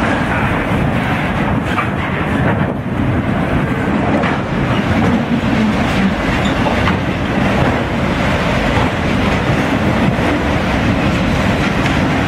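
Autorack freight cars rolling past at close range: a steady rumble of steel wheels on the rails, with occasional faint wheel clicks.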